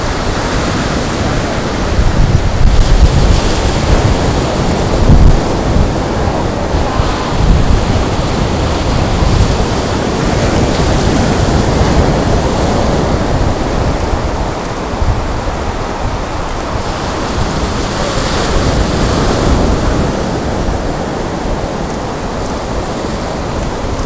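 Surf breaking on a beach, a steady wash of waves, with wind buffeting the microphone in uneven low rumbles, heaviest a few seconds in.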